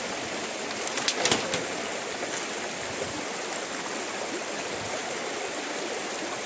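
Fast-flowing shallow river water rushing steadily over a stony bed. About a second in, a few short clicks and a brief creak come from the bamboo poles of the footbridge underfoot.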